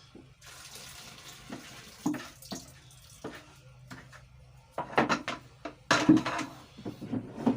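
A watery mixture poured into a bowl of thick conditioner base, a steady splashing for about two seconds. Scattered knocks and clatters follow, loudest in the last few seconds.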